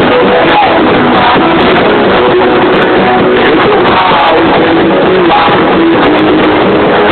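Rock music with guitar and drums played very loudly through a car sound system, heavily compressed and muffled in the treble.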